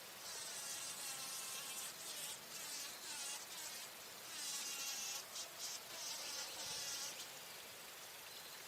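Bumblebee buzzing in bouts, its pitch wavering up and down, with a few short breaks; the buzz stops about seven seconds in.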